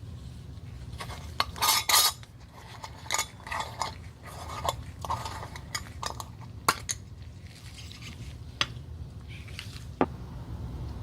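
Hard objects clinking and scraping as tools are handled at the workbench: a loud flurry of clinks about two seconds in, scattered lighter clicks and scrapes after it, and two sharp single taps later on, over a steady low hum.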